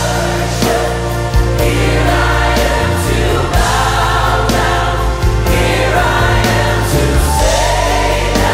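Gospel choir singing a worship song with full band accompaniment over a steady, sustained bass.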